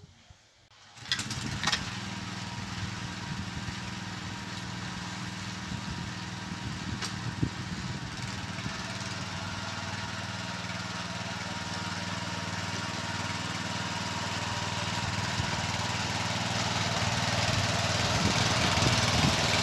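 Ugra walk-behind tractor's engine running steadily as it pulls a fan-type potato digger through the soil, getting gradually louder as it comes closer. The sound starts abruptly about a second in.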